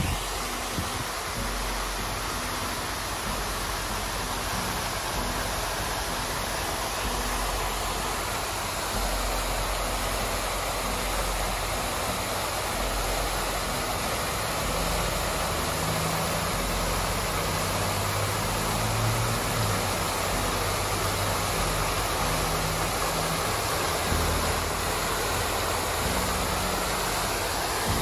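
Fountain jets splashing steadily into the basin in a continuous rush of falling water, with a low rumble underneath.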